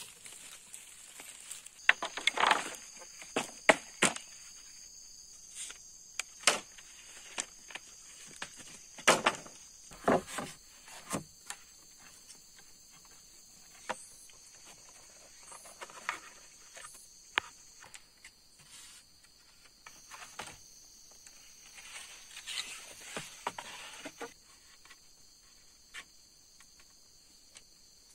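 Rustling with sharp snaps and knocks from hands pulling vines and working bamboo poles, loudest in two clusters near the start and about ten seconds in. Behind it, insects chirr steadily in high, unbroken tones.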